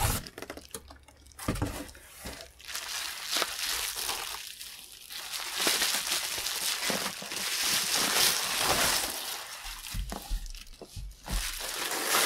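Bubble wrap rustling and crinkling as it is handled and peeled off a boxed package, in uneven bursts with a short lull about a second in, and a few soft low bumps near the end.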